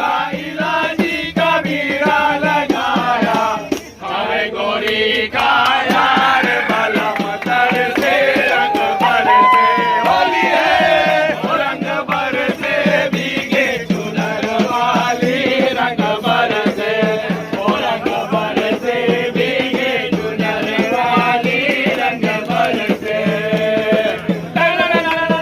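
A group of men singing and chanting together to a steady rhythm of rattling percussion and clapping, a festive group song.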